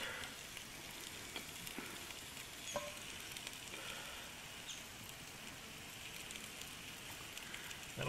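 Faint, steady sizzling of a lamb roast in an open camp oven as pieces of vegetable go in, with a few light clicks.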